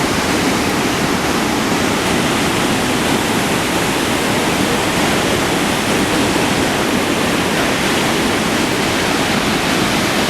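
Steady, loud roar of a flooded waterfall, the heavy rush of high floodwater pouring over Iguazu Falls.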